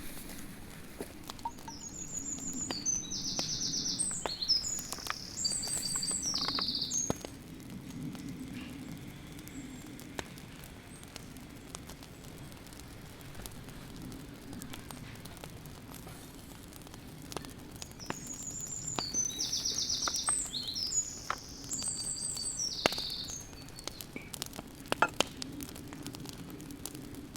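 A songbird sings two long songs with fast trills, one about two seconds in and one about eighteen seconds in, over scattered faint clicks and a low steady hum.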